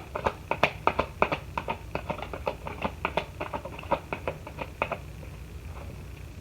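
Tarot cards being handled on a table: a quick series of light taps and slaps, about three to four a second, that stops about five seconds in.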